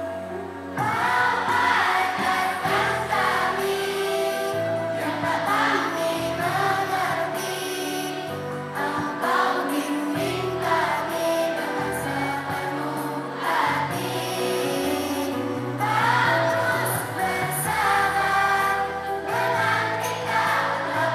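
A group of children singing together in unison over instrumental accompaniment with a moving bass line, the singing coming in about a second in and going on in phrases.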